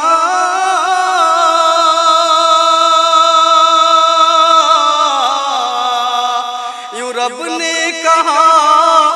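A man singing a naat unaccompanied, holding one long, wavering, ornamented note for about seven seconds, then starting a new phrase near the end.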